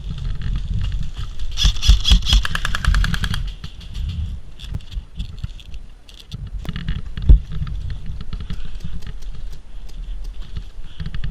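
Airsoft electric rifle firing a burst on full auto: about two seconds of rapid, evenly spaced shots, around fifteen a second, starting about a second and a half in. A single sharp knock follows a few seconds later, over rustling movement noise.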